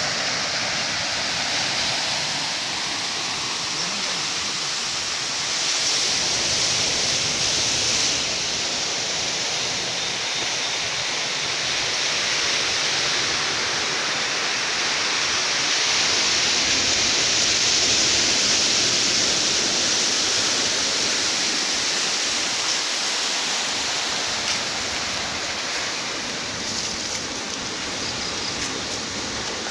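Indian Ocean surf washing onto the beach: a steady rush of breaking waves that swells and eases slowly.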